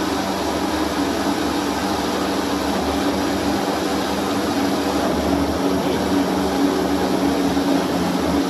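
Blender motor running steadily, blending a fruit smoothie.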